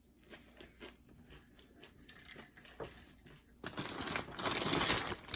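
Doritos tortilla chips crunching loudly for about a second and a half near the end, after a stretch of faint small crunches and clicks.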